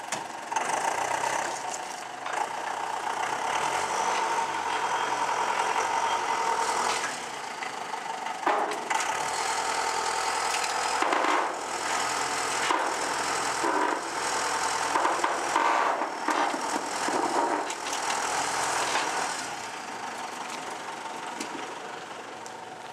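John Deere 6210 tractor's diesel engine running and revving up and down as it works its front-loader forks, with occasional knocks.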